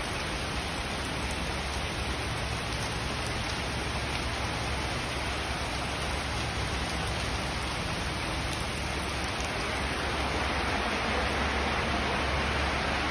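Rain falling steadily, an even hiss of drops that grows a little louder near the end.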